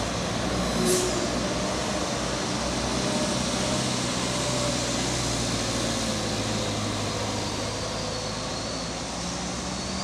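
Heavy trucks loaded with sugarcane driving past through a bend, their diesel engines running with steady engine and tyre noise. A short hiss about a second in.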